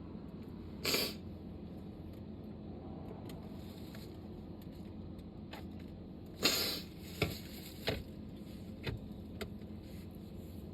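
A person sneezing during a sneezing fit: a short noisy burst about a second in, then a longer, louder one about six and a half seconds in, followed by a few brief faint clicks.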